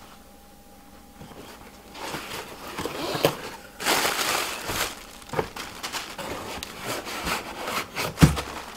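Cardboard box flaps pulled open and plastic air-pillow packing rustled and crinkled by hands digging inside the box, with scattered sharp clicks of cardboard. A single heavy thump near the end as the inner box is pulled out.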